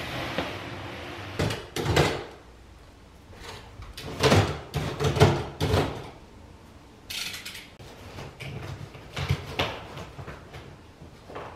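Household knocks and clatter: several separate bouts of bumps and thuds, loudest from about four to six seconds in, with a short hiss about seven seconds in.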